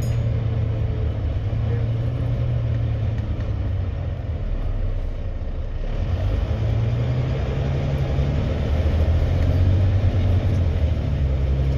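Volvo B9TL double-decker bus's six-cylinder diesel engine pulling the bus along, heard inside the upper deck as a steady low drone over road noise, growing louder in the second half.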